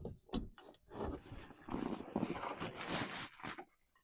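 A sharp metal knock, then a long strained grunt of effort while a steel spacer is forced into place by the truck's rear axle and leaf spring.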